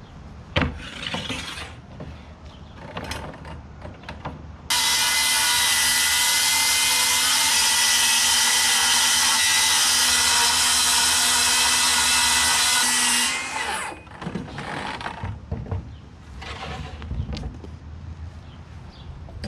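Circular saw ripping a strip off a sheet of 3/4-inch plywood. The saw starts abruptly about five seconds in, runs steadily through the cut for about eight seconds, then winds down. A sharp knock comes before the cut, and scattered handling noises follow it.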